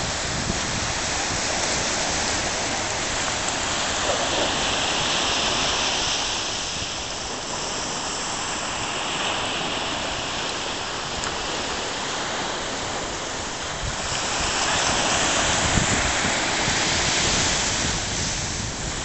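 Ocean surf breaking and washing up the beach: a steady rushing hiss that swells twice as waves come in, with wind buffeting the microphone.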